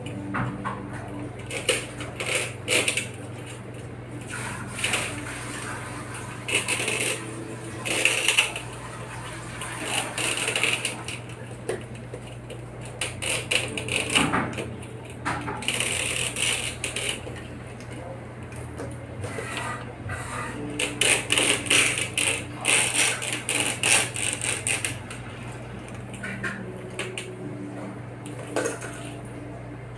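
Irregular metallic clicks, taps and scrapes from working on an aluminum screen door, over a steady low hum.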